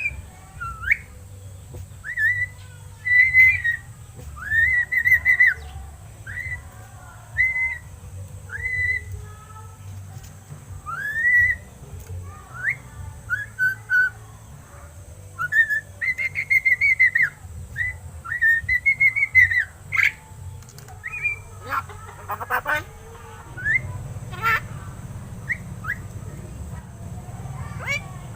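Pet myna whistling a long run of short whistled notes, each rising and falling in pitch, with a few chirps and a brief scratchy rustle near the end.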